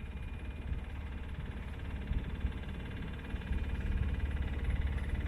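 Sailboat's inboard engine running steadily under way, a low even throb that grows a little louder about three and a half seconds in.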